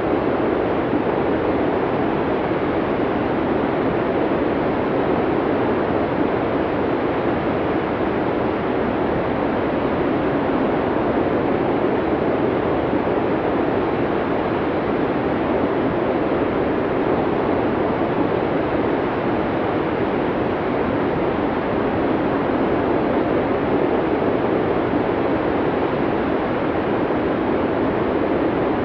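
Snowstorm wind blowing as a steady, even rushing noise, with no gusts, breaks or changes in level.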